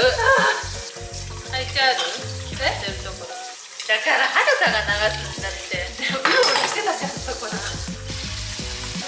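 Tap water running with a steady hiss as something is washed and rinsed under it, over chatter and background music with a pulsing bass.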